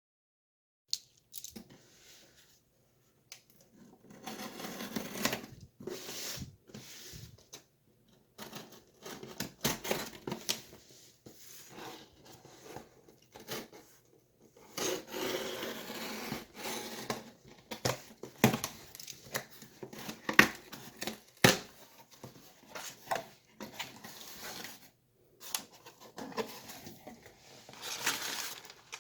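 Product packaging being handled and opened: irregular tearing and crinkling, broken by scattered sharp clicks and knocks.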